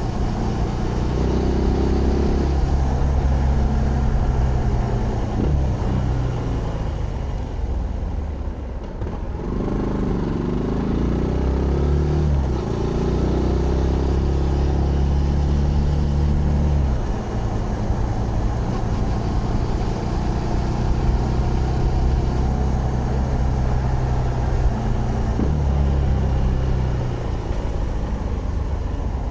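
Zontes GK 125's single-cylinder 125cc engine running while the bike is ridden, its pitch rising and falling with the throttle and gear changes. It drops off about eight seconds in, then revs back up.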